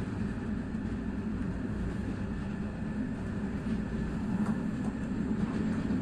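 BDs450 passenger coach running along the rails, heard from on board the last coach: a steady low rumble of wheels and bogies, with a few faint clicks about four to five seconds in.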